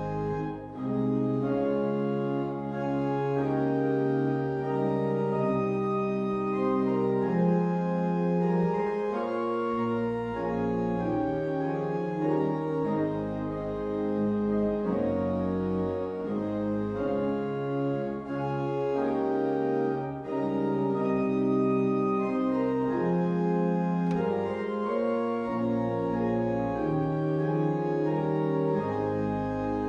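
Church organ playing a hymn arrangement: full, sustained chords over deep held bass notes, changing every second or two, with brief breaks between phrases.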